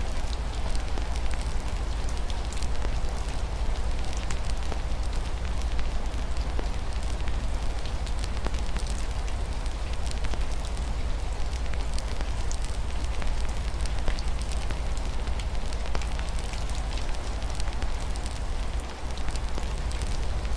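Fireplace crackling, with many small irregular pops over a steady hiss of rain and a deep, constant low rumble.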